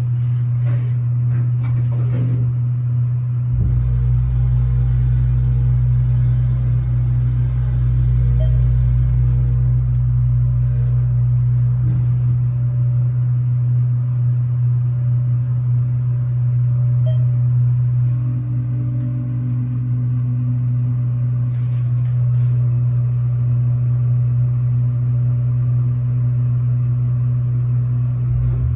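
Elevator motor running as the car goes up: a steady low hum, with a deeper rumble joining about three and a half seconds in and dying away near the middle.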